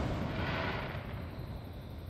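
Echo of an aerial firework shell burst, fading away over about a second and a half.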